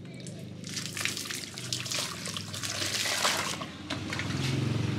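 Rinse water splashing and sloshing inside a wooden mortar as it is washed out, with irregular trickles and splashes. A low steady hum runs underneath and grows louder near the end.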